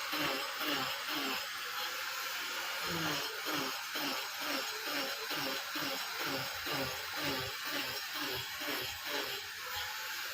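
Rhythmic strokes of a hand tool working wood, about three to four a second, over a steady hiss.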